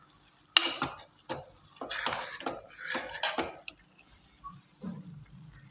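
Metal kitchen utensils and vessels clinking and clattering, a sharp clink about half a second in, then a run of irregular knocks and scrapes.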